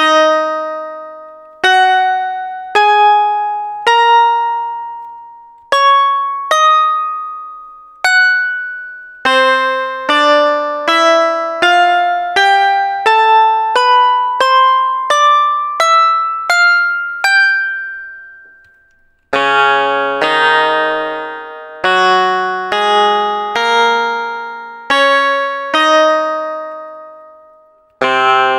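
Sampled bulbul tarang (Indian banjo) notes played one at a time, each plucked sharply and ringing out as it fades. The notes come about a second apart at first, then climb in a quicker rising run, stop briefly, and from about two-thirds through give way to fuller, lower notes sounding several pitches together.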